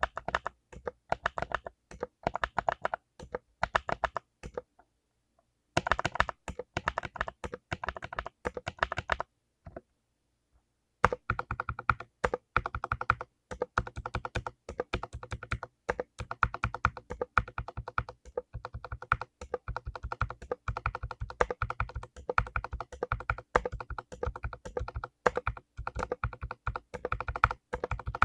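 Fast typing on a mechanical keyboard with clicky blue switches, top-plate mounted: a dense run of crunchy key clicks, broken by two short pauses about five and ten seconds in.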